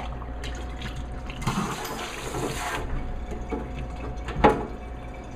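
Water from a faucet running and splashing into a kitchen sink as food scraps are rinsed toward the disposal drain. The water gets louder for about a second, a second and a half in, and there is one sharp knock near the end.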